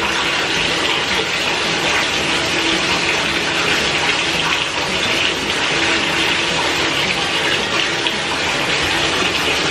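Bathtub faucet running steadily, water pouring from the spout into the tub.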